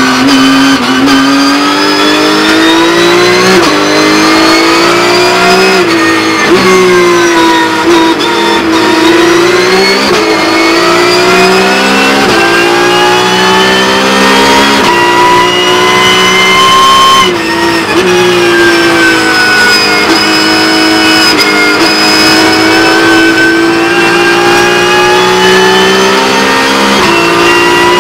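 Porsche 911 GT3 Cup's 4.0-litre flat-six racing engine at full load. Its note climbs through the revs and drops sharply several times at gear changes, with slower falls in between as the car slows for corners.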